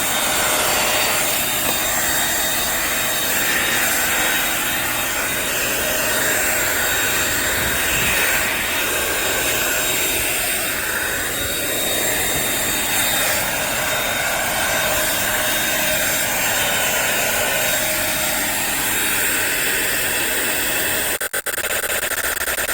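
Dirt Devil Simpli-Stik stick vacuum's motor running, a steady whooshing whir with a faint whine, with two brief dips near the end.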